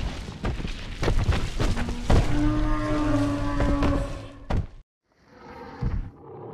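Creature sound effects for an animated dinosaur: a long bellowing call held at one pitch, among heavy thuds. The sound breaks off suddenly about three-quarters of the way through, and fainter sounds follow.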